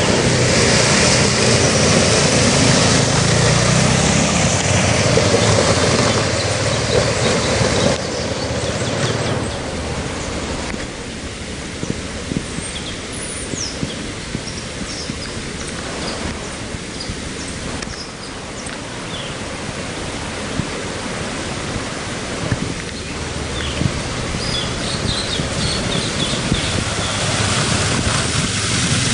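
Dual-sport motorcycle engine running as the bike rides through a shallow rocky river, with water splashing under the wheels and the river rushing. Loudest at the start; in the middle the engine drops back behind the noise of the flowing water, then it comes close again with loud splashing near the end.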